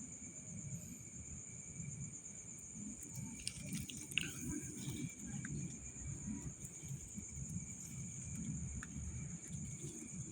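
Night insects, crickets, trilling in a steady, unbroken high tone, over a low uneven rumble of movement with a few faint clicks near the middle.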